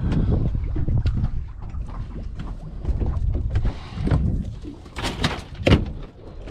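Irregular low wind rumble on the microphone, with three sharp knocks about five seconds in.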